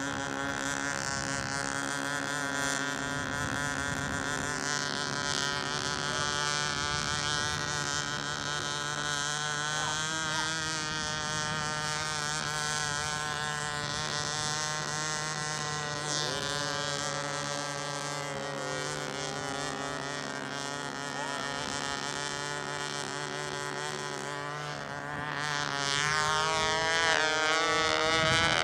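Small two-stroke control-line model airplane engines running at a high, steady pitch that wavers as the planes circle. About 25 seconds in, one engine grows louder and its pitch shifts and glides as a plane takes off and passes.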